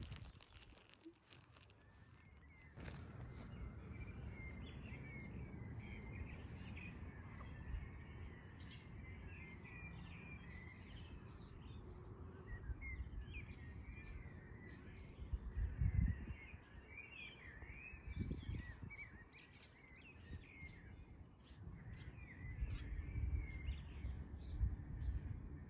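Birds chirping and twittering in a steady stream of short, high calls, over a low outdoor rumble that swells loudly twice around the middle and again near the end.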